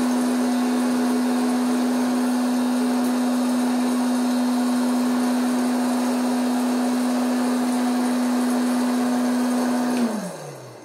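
Silvercrest 1200 W hot-air popcorn maker running, its fan motor giving a steady hum with a rush of blown air. About ten seconds in it is switched off with a click, and the motor winds down, its hum falling in pitch and fading.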